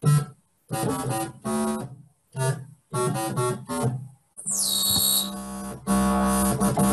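Korg analogue synthesizer played on its keyboard with the modulation switched off: a run of short low-register notes separated by brief gaps, then longer held notes from about four and a half seconds in. A bright high tone slides downward briefly around the middle.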